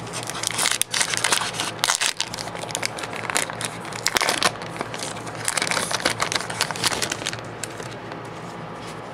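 Foil trading-card booster pack wrapper crinkling as it is handled and torn open, a dense run of irregular crackles that dies down near the end.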